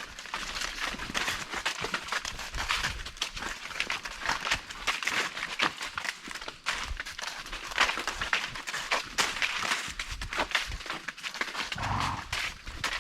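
Horses walking on a trail: a steady, irregular run of hoof crunches, clicks and rustling, with a brief lower sound about twelve seconds in.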